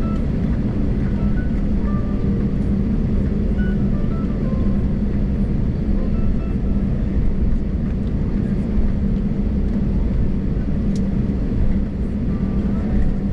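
Steady low rumble and drone inside the cabin of an Airbus A320neo taxiing, its CFM LEAP-1A engines at low taxi power as the airliner rolls along the taxiway.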